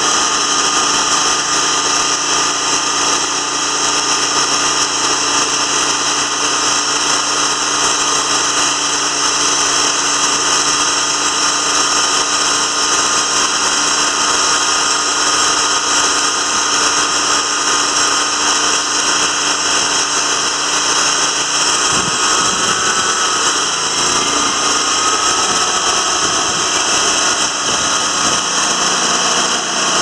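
TimberKing 2000 band sawmill running steadily, its engine driving the band blade as the saw head travels along the track. The sound shifts about two-thirds of the way through.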